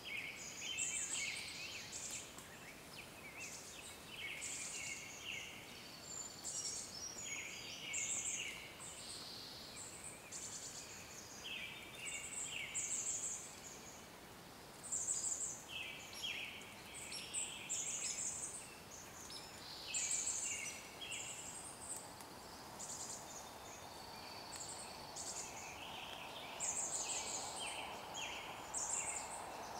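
Several small birds chirping and trilling in short, repeated bursts of high notes over a steady background hiss.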